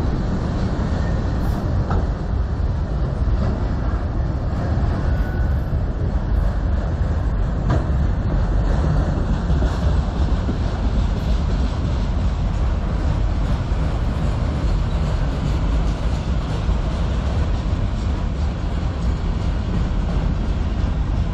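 Freight train's autorack cars rolling past: a steady, low running noise of steel wheels on rail.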